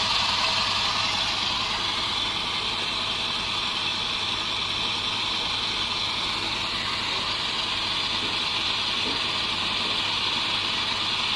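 Pressure washer running with a steady hum, its water jet spraying continuously into a diesel particulate filter to flush out soot.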